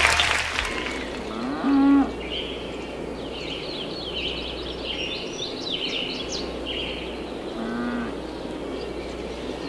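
Cow mooing twice, two short calls about six seconds apart, with birds chirping in between.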